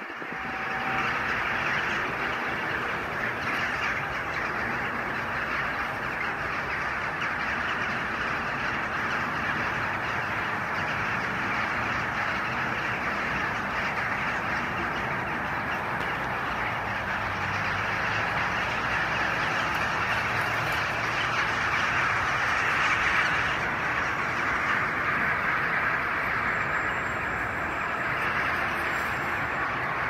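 A large flock of birds calling all at once: a dense, continuous din in which no single call stands out.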